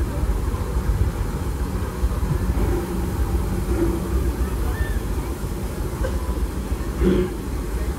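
Disneyland Railroad steam train running slowly past, heard as a steady low rumble with faint scattered voices and a brief louder patch about seven seconds in.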